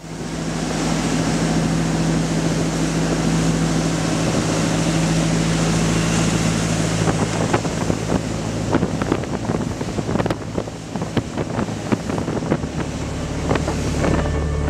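Motorboat running fast at planing speed through choppy water: a steady engine drone under the hiss of spray and wake and wind buffeting the microphone, with frequent sharp slaps and gusts from about halfway through.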